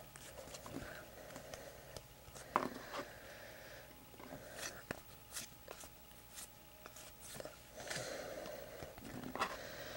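Faint handling of baseball trading cards: light scattered clicks and scrapes as the cards are slid and flipped through one by one.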